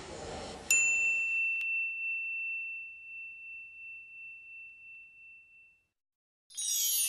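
A single bright chime-like ding struck under a second in, ringing down slowly over about five seconds. A whoosh fades out just before it, and music starts near the end.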